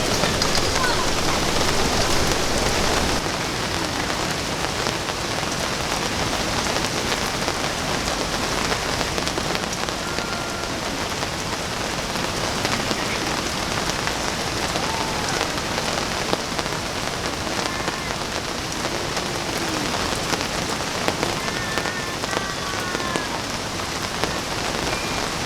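Steady heavy rain falling and pattering on surfaces, an even hiss with no breaks.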